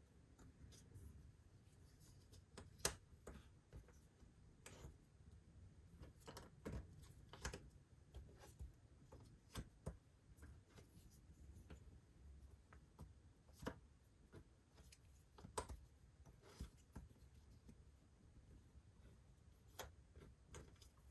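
Cardboard jigsaw puzzle pieces being handled and set down on a table: faint, irregular light clicks and taps, with one sharper tap about three seconds in.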